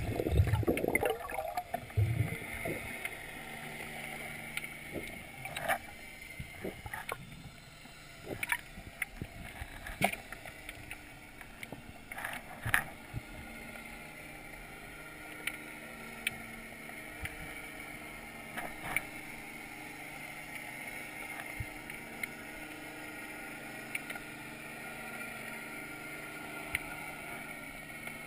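Underwater sound heard through a camera's waterproof housing: a steady hum with a faint held high tone, broken by scattered sharp clicks and knocks. There is louder rushing water in the first two seconds.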